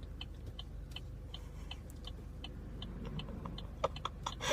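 Steady, even ticking like a clock, about two and a half ticks a second, over a low hum, with a few louder clicks near the end.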